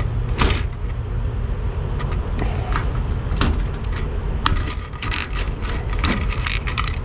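Hand rivet gun being squeezed to set pop rivets in a toolbox latch: scattered sharp clicks and snaps, then a quicker run of clicks about five seconds in. A steady low rumble runs underneath.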